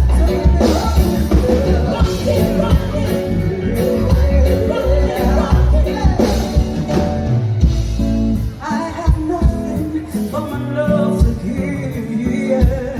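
Band music with a singer, over a heavy, steady bass line.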